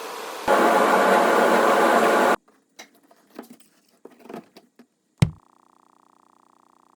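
Electric random orbital sander running with a steady buzzing whir, louder about half a second in, then cut off abruptly. Faint clicks and a single sharp knock follow.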